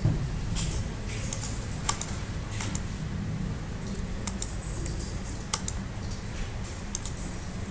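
Computer keyboard keystrokes, about ten scattered, irregular clicks over a steady low hum.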